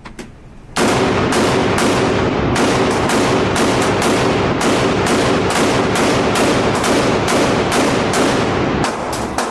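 Gunfire at a shooting range: many sharp shots, about two to three a second at uneven spacing, from several guns firing at once, over a continuous loud din. It starts abruptly about a second in.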